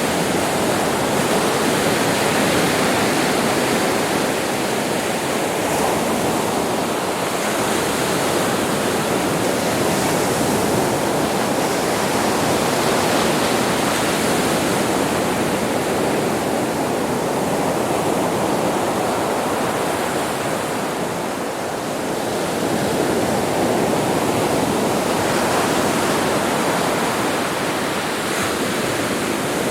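Ocean waves washing onto a beach: a continuous rush of surf that slowly swells and eases, with a brief lull about two-thirds of the way through.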